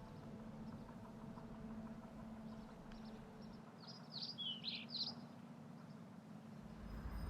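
Faint birdsong: a few quick, high chirps about four to five seconds in, over a steady low hum.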